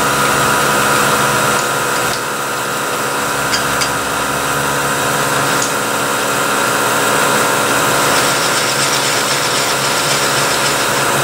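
Vertical milling machine running steadily with its spindle at about 3,200 rpm, the speed set for a 1/8-inch end mill in mild steel, giving a steady hum with a whine over it. A few light clicks come about midway.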